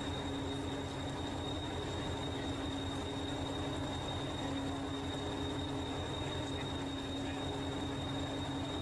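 Class 201 'Hastings' diesel-electric multiple unit 1001 standing with its diesel engine idling: a steady, even throb with a constant hum over it.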